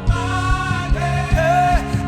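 Live gospel praise-and-worship music: a band playing sustained chords over a steady drum beat, with a voice holding a note in the second second.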